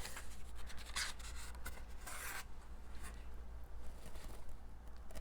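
Gift packaging being handled: short rustles and scratchy rubbing with a few small clicks, the longest rustle about two seconds in.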